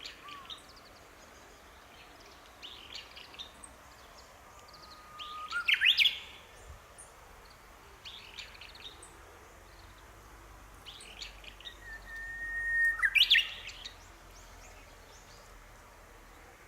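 Japanese bush warbler singing its "hoo… hokekyo" song twice: each time a long, steady whistled note, then a quick rising-and-falling flourish. Fainter short bird chirps come in between.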